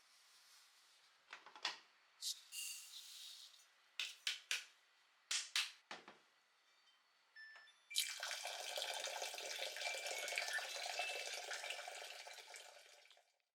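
A few scattered knocks and clicks, then a kitchen tap running steadily from about eight seconds in, tapering off and stopping near the end.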